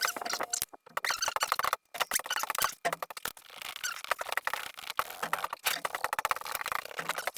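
Close handling noise from the fan's parts being worked by hand: fast, irregular scratchy clicks and squeaks as they are rubbed and wiped, with a few short pauses in the first three seconds.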